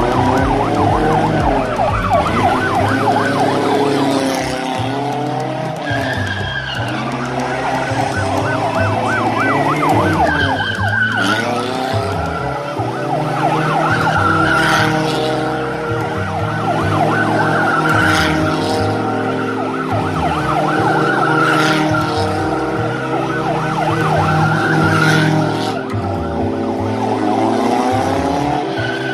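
Drift car sliding in circles: its engine revs up and down over and over and its tyres squeal in repeated rushes, with a siren wailing over it.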